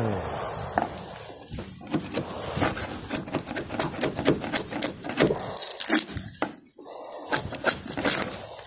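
Steel chisel scraping and chipping at a boat's fiberglass deck, prying the skin away from the core in an irregular run of sharp scrapes and cracks.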